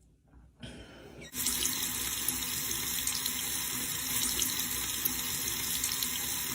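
Steady rush of running water, like a tap running into a sink. It starts abruptly about a second and a half in, after a moment of near silence.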